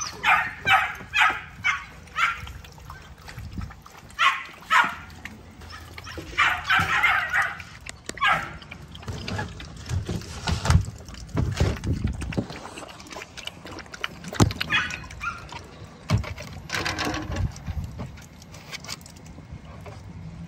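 XL American Bully puppies barking and yipping in short bursts: a quick run of yips in the first two seconds, more around four and seven seconds, and again near seventeen seconds. Low thumps and rustling run beneath them.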